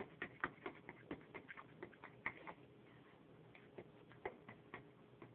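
Metal fork whisking pancake batter in a bowl, clicking and tapping against the bowl in quick irregular strokes that thin out after about two and a half seconds.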